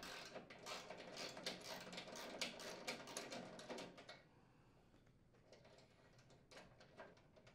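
Faint, rapid clicking of a socket ratchet unthreading a nut from a bolt for about four seconds, then it stops and only a few faint ticks follow.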